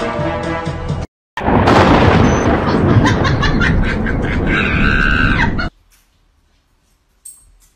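Loud rush of a rainstorm and wind on the microphone, with a woman screaming near the end. It cuts off abruptly.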